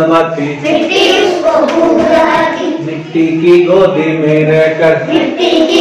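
A class of young children chanting a Hindi poem together in a sing-song chorus.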